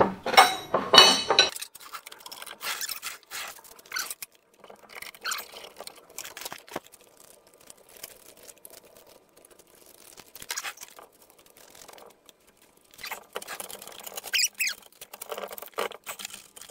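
Hand work on a bench grinder-polisher as its grinding wheel is loosened and taken off the arbor: scattered metal clicks, light clinks and scrapes of tools and the wheel, with a louder clatter in the first second or so and a quieter spell in the middle.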